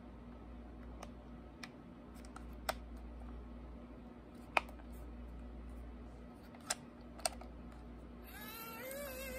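Scattered light clicks and taps of a small black plastic radio's case being handled, its compartment door opened and closed. Near the end, a warbling tone that wavers in pitch starts up.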